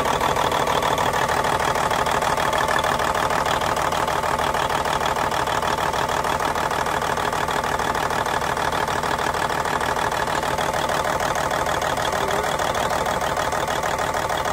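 Cummins N14 Celect Plus inline-six diesel idling steadily with a rapid, even clatter. The engine has a faulty injector that the owner blames for rough running and a vibration.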